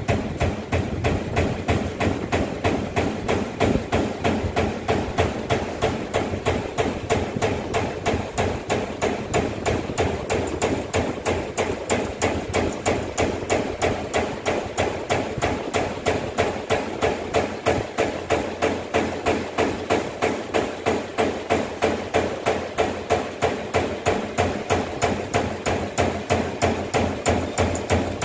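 Amada EM2510NT AC-servo-driven CNC turret punch press punching holes in sheet metal: a steady run of sharp, evenly spaced punch strokes, a few a second.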